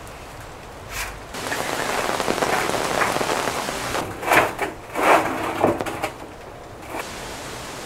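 Rain falling and pattering on surfaces, growing heavier about a second in, with a few louder bursts of noise around the middle.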